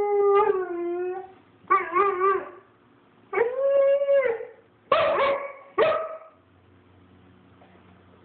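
A 5½-month-old German shepherd puppy howling: a long howl that drops in pitch at its end, then a wavering howl, a steady held one and two short cries, stopping about six and a half seconds in.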